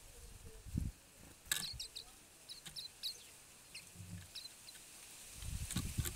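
Silvereyes (waxeyes) giving short, high chirps in scattered runs. There is a sharp click about a second and a half in, and low thumps near the start and near the end.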